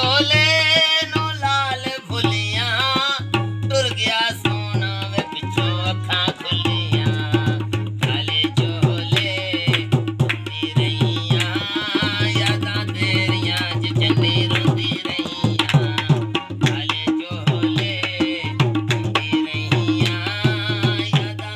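Tabla played in a brisk steady rhythm with harmonium chords underneath, a live folk devotional accompaniment. A voice sings a wavering melodic line over the first few seconds.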